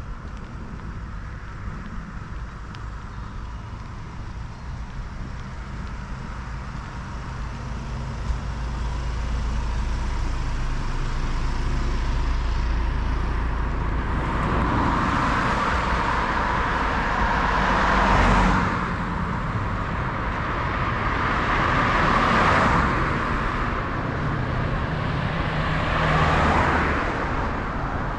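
Road traffic on a wet road: quiet at first, then from about a third of the way in vehicles pass close by one after another, three louder passes in the second half, each a swelling and fading hiss of tyres on wet tarmac.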